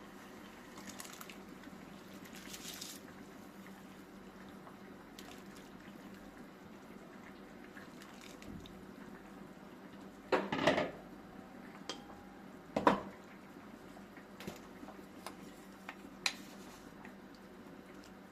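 Kitchenware being handled over a faint steady hum: two louder clatters, about ten and thirteen seconds in, and a few small clicks and knocks.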